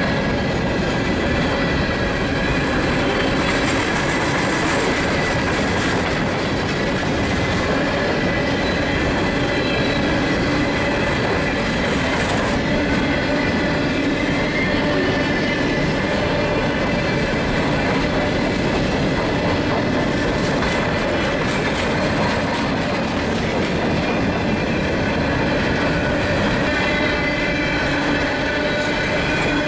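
Empty Norfolk Southern coal hopper cars rolling past, their wheels making a steady whirring on freshly ground rail, which leaves the rail head ridged so that it sings under the wheels.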